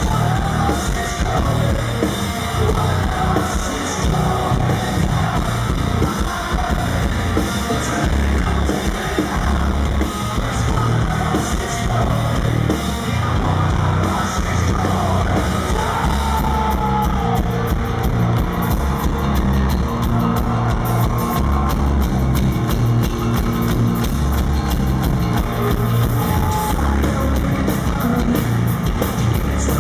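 Rock band playing live: electric guitar, bass guitar and drum kit, with a male lead singer.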